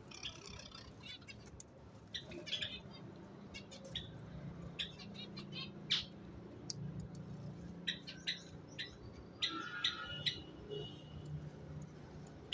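A pair of budgerigars chirping in short, sharp, irregular calls, with a burst of warbling chatter near the end.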